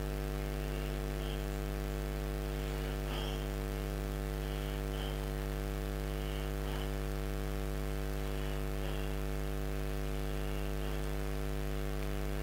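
Steady electrical mains hum: a constant low buzz with a stack of even overtones, with faint brief high sounds now and then.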